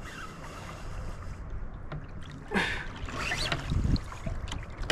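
Wind rumbling on the microphone and water splashing against a fishing kayak's hull. About halfway through comes a louder rush of splashing with a few short knocks.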